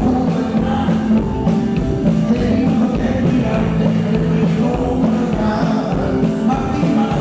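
Live rock band playing a song, a man singing lead over acoustic guitars and keyboard.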